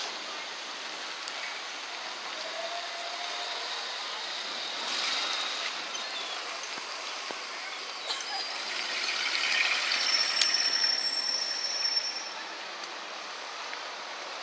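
Outdoor street noise: a steady wash of traffic and passers-by, growing louder for a couple of seconds about ten seconds in as a vintage saloon car drives past.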